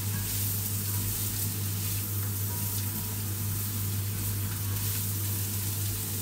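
Sliced carrots and baby corn sizzling in oil in a nonstick frying pan as they are turned with a spatula, over a steady low hum.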